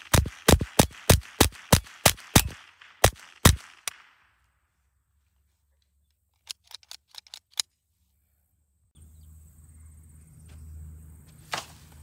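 A .22 caliber Winchester semi-automatic rifle firing about ten shots in quick succession, roughly three a second, with a brief pause before the last two. After a gap, a short run of faint light clicks.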